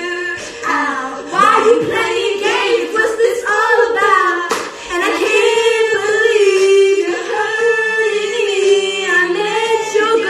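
Several young women singing an R&B song together, loud and sustained, their voices gliding and overlapping.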